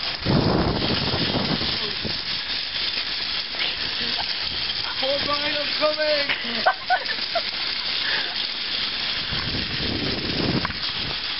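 Shopping cart with a rider pushed fast over wet asphalt: a steady hiss of the wheels on the wet pavement, with low rumbles at the start and near the end. Laughter rises about halfway through.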